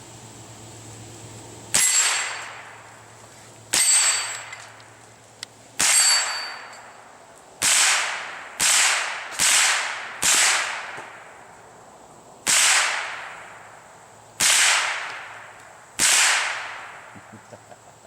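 Smith & Wesson M&P 15-22 rifle firing .22 LR, ten sharp shots at an uneven pace with a quicker run of four in the middle, each report dying away over about a second.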